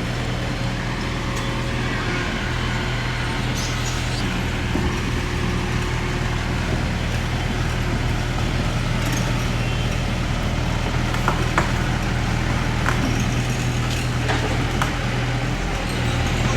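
Heavy diesel earthmoving machinery running steadily under load, with a low, even engine drone and a few short knocks about two-thirds of the way through.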